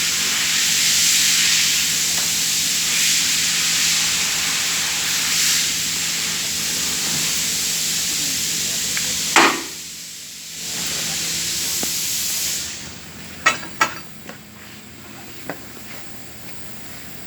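Steady hiss of a vehicle lift being lowered all the way. It drops out briefly about nine and a half seconds in, resumes, and stops near thirteen seconds, followed by a few sharp clicks.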